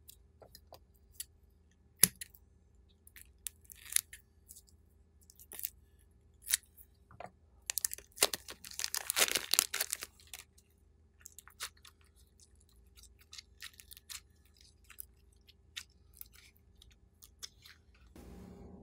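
Crinkling plastic piping bag and crackling foam beads as slime packed with foam balls is squeezed out of the bag, in scattered sharp crackles with a dense burst of crackling about eight to ten seconds in.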